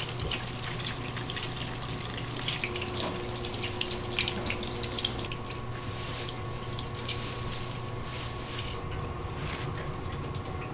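Bakery kitchen work sounds: a light, watery crackle with small irregular clicks over a steady machine hum.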